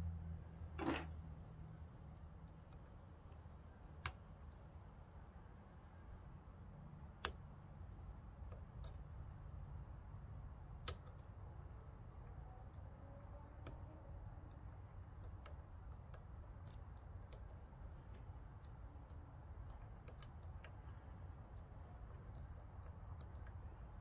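Faint metallic clicks and ticks of lock picking: a thin pick pushes in the pins of a seven-pin push-style Van Lock padlock held under tension. There are a few sharper clicks spaced seconds apart, then a scatter of small ticks.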